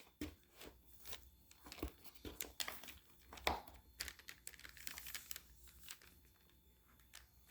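Plastic packaging bag crinkling faintly as it is handled, in scattered short rustles and clicks.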